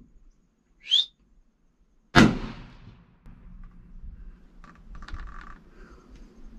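A single rifle shot about two seconds in, sudden and loud, its report dying away over most of a second. A brief high rising whistle comes just before it, and faint clicks and rustles follow.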